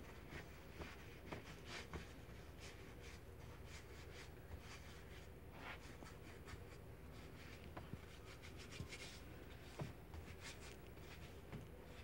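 Faint, soft rubbing and scuffing of hands rolling and pressing bread dough on a floured countertop, in short irregular strokes.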